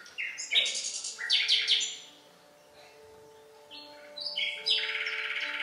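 Birdsong, bursts of high chirps and trills in two clusters with a pause between, over quieter held musical notes that come in about a second in: a birdsong soundtrack opening a dance piece.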